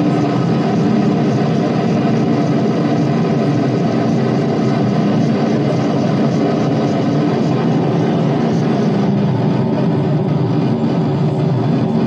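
Live experimental noise music: a loud, dense, unbroken drone with several held low tones and no beat.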